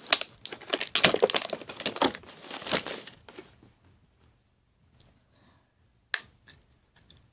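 Clear plastic toy packaging crinkling and crumpling as it is handled for about three and a half seconds. Then a single sharp click about six seconds in, with a few faint ticks after.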